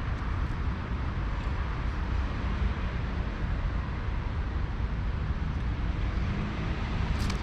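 Steady rush of a small, shallow creek running over rocks, under a low rumble of wind on the microphone. A brief click near the end.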